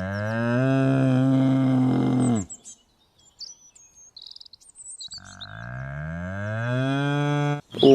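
Cow mooing twice, each moo a long low call that rises in pitch and then holds. Small birds chirp in the pause between the two moos.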